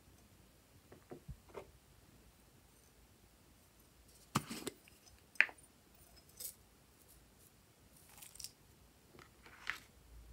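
A handful of separate light clicks and knocks from a glass jar and a plastic ice-cube tray being handled, the sharpest about five and a half seconds in.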